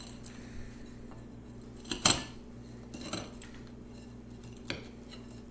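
Butter knife sawing at a stacked waffle sandwich, scraping and knocking against the plate a few times, with the loudest clack about two seconds in.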